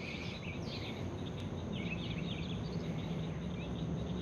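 Outdoor ambience of small birds chirping in scattered short calls over a low, steady hum.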